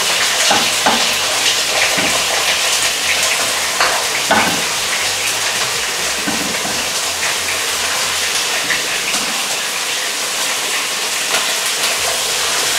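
Beef liver slices sizzling in hot oil in a frying pan, a steady loud hiss, with a few short knocks and spits in the first few seconds as more slices go in.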